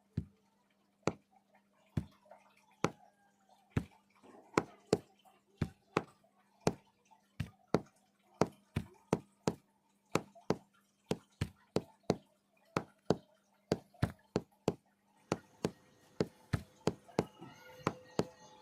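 Repeated sharp knocks, about two a second, coming closer together near the end, over a steady low hum.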